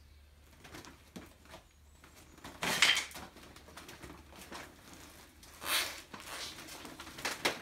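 A heavy motorcycle being rolled backwards over a crumpling plastic groundsheet: rustling and scuffing, with the loudest rustle about three seconds in and two more near the end.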